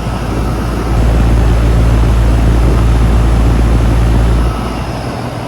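2001 Miller (Nordyne) 2-ton air conditioner condensing unit running: the steady low hum of its reciprocating compressor with the rush of the condenser fan, growing louder about a second in and easing off again near the end.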